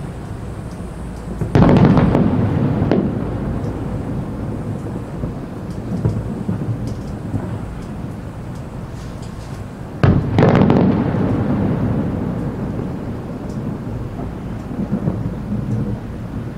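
Aerial firework shells bursting: two loud booms, about a second and a half in and about ten seconds in, each trailing off in a long rolling rumble, with smaller thuds between.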